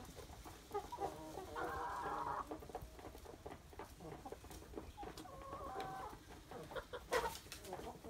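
Chickens and roosters clucking, with two longer calls, one about a second in and another about five seconds in, and a sharp knock near the end.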